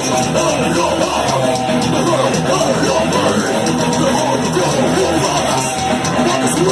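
Thrash metal band playing live: distorted electric guitars and drum kit at a fast pace, loud and steady.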